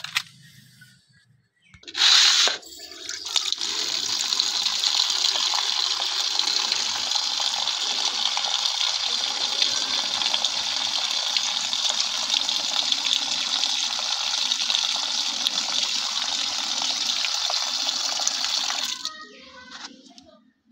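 Water pouring in a thin steady stream into a steel bowl of cut fish pieces, filling it to wash the fish. It begins with a brief loud burst about two seconds in and stops suddenly near the end.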